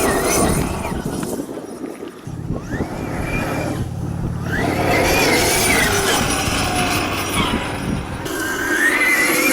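A 1/5-scale RC buggy's brushless electric motor, run on 12S power through a Hobbywing Max5 G2 controller, whines as the car is driven hard. The whine glides up and down in pitch with the throttle over a rushing noise. It dips for a couple of seconds about two seconds in, then climbs back up.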